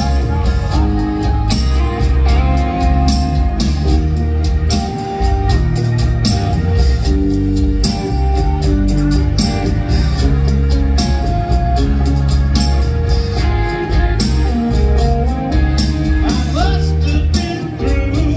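Live rock band playing a song at full volume: electric guitar, bass guitar, keyboards and a drum kit keeping a steady beat.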